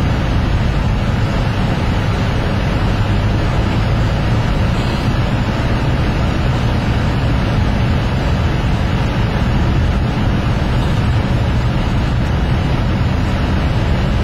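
Car driving, heard from inside the cabin: steady engine and road noise with a low hum.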